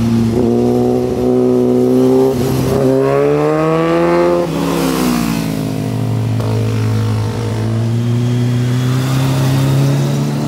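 Motorcycles riding past through a curve, one after another. One bike's engine climbs in pitch as it accelerates and then falls away as it passes, about four and a half seconds in. Another engine rises near the end.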